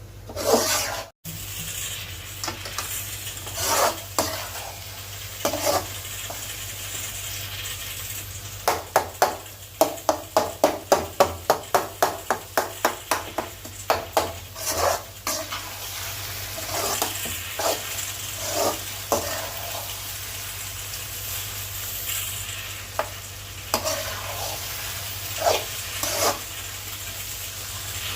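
Mutton brain frying in a pan with a steady sizzle while a spatula stirs and scrapes it. Near the middle there is a quick run of strokes, about two to three a second.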